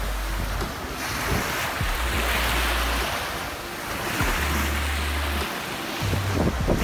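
Small waves breaking and washing up on a sandy bay shore, the hiss of surf swelling and fading every second or two. Wind buffets the microphone with a low rumble.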